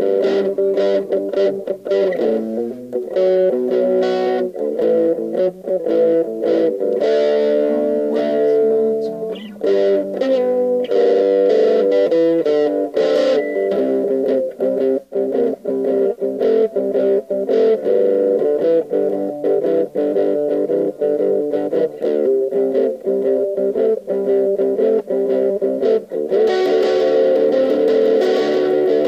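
Electric guitar played through an amp in an overdriven 'brown sound' tone, running boogie riffs: a steady stream of picked notes and chords.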